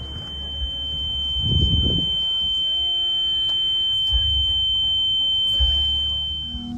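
A single steady high-pitched electronic tone, held unbroken for about seven seconds and cutting off near the end, over a low rumble that swells briefly about one and a half seconds in.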